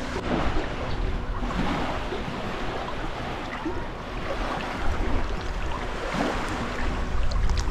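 Shallow seawater swishing and splashing irregularly as someone wades through it, with a steady low rumble of wind on the microphone.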